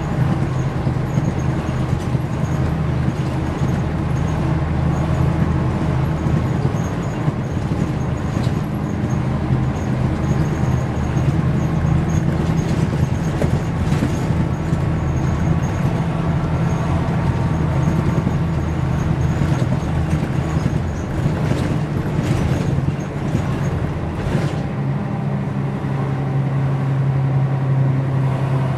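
Mercedes-Benz O405 N² city bus's six-cylinder diesel engine idling steadily, with a few short clicks or hisses in the second half; the engine note shifts a few seconds before the end.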